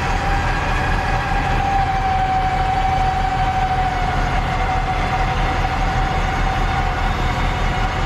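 Tow truck winching a stuck vehicle out: a steady engine rumble under a continuous high whine that sags slightly in pitch, typical of the hydraulic winch drive working under load.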